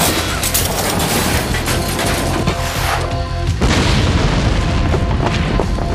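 Cartoon explosion sound effects: loud rumbling booms and crashes over dramatic action music.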